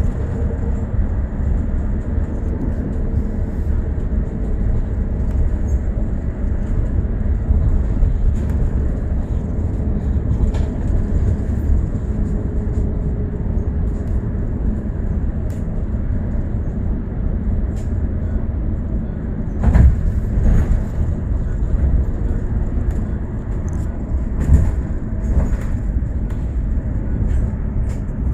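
A bus underway: steady low engine and road rumble, with scattered rattles and knocks, the loudest about 20 seconds in and again near 25 seconds.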